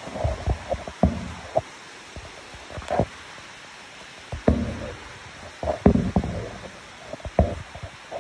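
Irregular knocks and thumps, a dozen or so spread unevenly, with rustling in between: the phone being handled and brushed against straw bedding.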